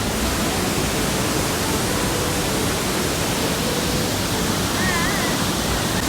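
Loud, steady rush of a large waterfall, Elephant Falls, heard from close to its base.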